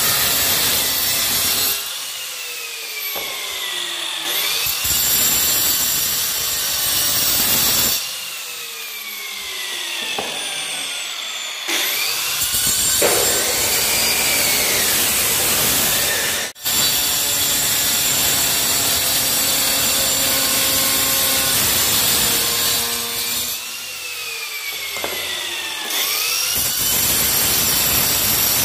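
Handheld angle grinder with a cutting disc cutting through tile in several passes. Between cuts its whine falls away and the noise drops, then the pitch climbs again and the loud grinding returns.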